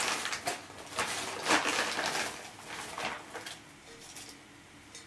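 Potting mix being scooped and poured by hand into a plant pot: a run of rustling scrapes that dies down after about three and a half seconds.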